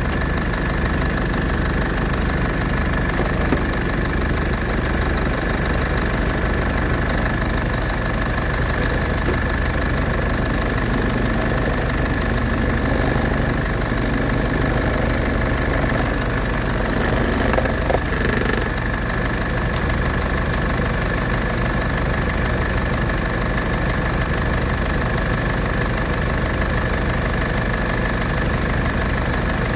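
Diesel engine idling steadily, with a constant high-pitched whine running along with it.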